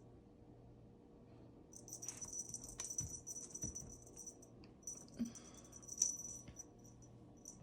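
Kitten batting and chasing a small toy: a quick, high rattling jingle in two stretches of a few seconds, with a couple of soft thumps, over a faint steady hum.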